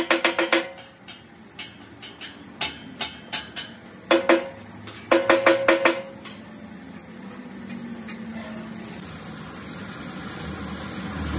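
Percussive background music with a fast clicking beat plays in short stops and starts for about the first six seconds. After that comes a steady hiss of compressed air from a paint spray gun, growing louder toward the end.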